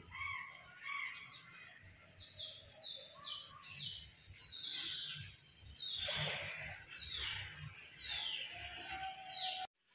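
A bird calling over and over: a run of short, high, downward-sliding chirps, about one or two a second, starting about two seconds in and stopping shortly before the end.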